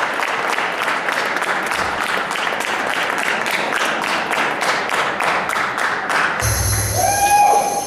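Audience applauding, a dense patter of many hands. About six and a half seconds in, the applause gives way to music that starts with a low bass note and a held, higher sustained tone.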